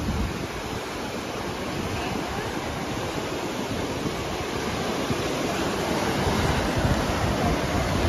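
Lake Michigan surf: waves breaking and washing steadily onto a pebbly beach, growing a little louder toward the end, with wind rumbling on the microphone.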